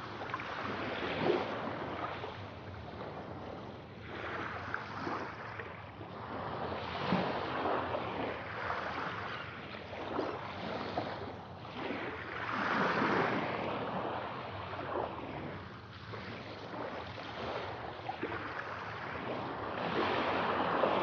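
Ocean waves washing onto a shore, swelling and fading every few seconds, with a bigger surge about 13 seconds in and another near the end.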